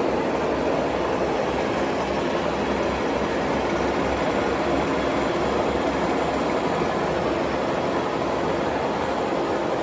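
1954 Bullard Cutmaster vertical turret lathe running under power, a steady, even machine noise with a low rumble underneath and no change in pitch.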